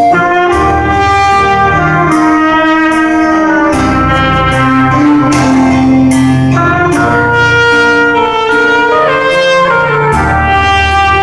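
A trumpet playing a melody of held notes over a recorded accompaniment with bass and drums.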